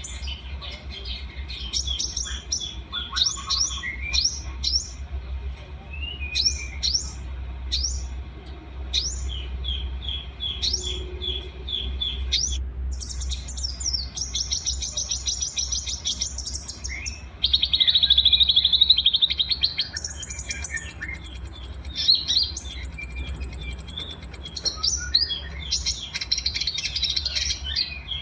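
Small songbirds singing in a masteran recording that mixes several birds' songs: quick high chirps, short whistled notes and rapid trills following one another without a break. The loudest part is a dense, buzzy trill about 17 to 20 seconds in. A steady low hum runs underneath.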